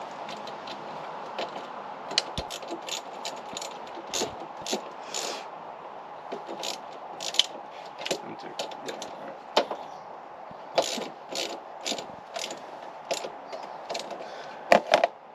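Hand ratchet wrench clicking in short, irregular runs as bolts are turned, with a couple of louder metal knocks near the end.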